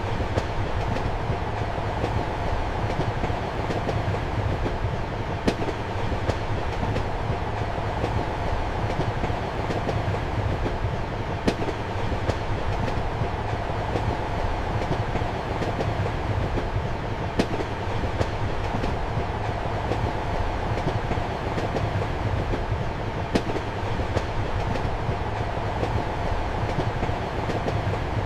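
A train running steadily, heard from inside a compartment: a constant rumble and hum, with sharp clicks of the wheels over rail joints standing out about every six seconds.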